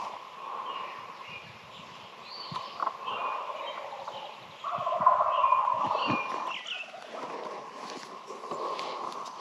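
A wild turkey gobbler gobbles once, about halfway through, the loudest sound, while small songbirds chirp.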